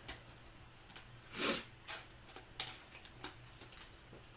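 Soft clicks and light rustling of trading cards being handled and sorted, with one louder short breathy whoosh, like a sniff or breath, about a second and a half in.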